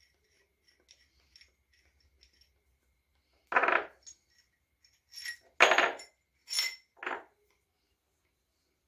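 Steel parts being handled on a workbench: a few faint ticks, then about five short metallic clanks and clinks, some ringing briefly, the loudest about two-thirds of the way through.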